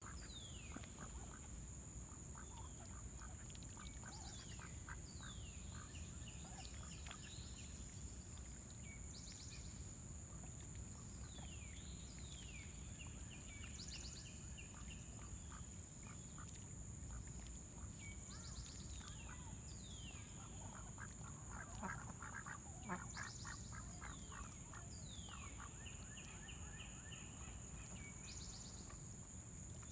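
Waterfowl calling on a lake, with a burst of louder quacking and honking about three-quarters of the way through. A songbird repeats a falling song phrase every few seconds over a steady high-pitched drone.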